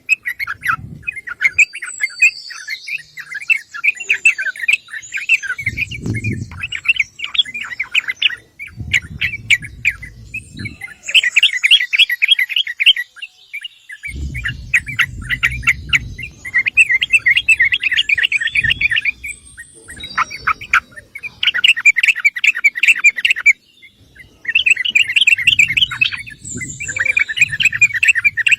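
Yellow-vented bulbul calling: repeated bursts of quick bubbling, chattering notes, each lasting a second or two, with short gaps between them. A low rumble comes and goes beneath the calls.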